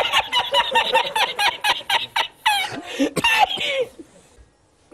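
A man laughing uncontrollably in rapid, high-pitched bursts, about six or seven a second, that die away to near silence near the end.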